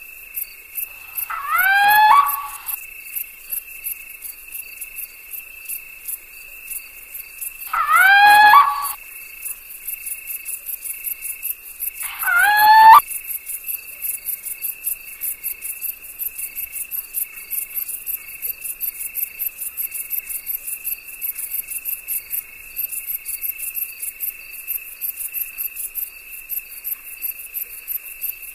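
Crickets trilling steadily in a night chorus. Three times, a loud rising call from an animal, each about a second long, sounds over the trill.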